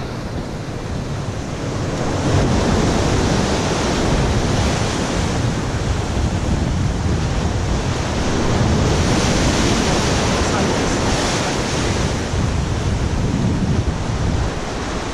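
Wind rushing over the microphone, mixed with waves breaking and washing against the jetty below: a steady, dense rush of noise.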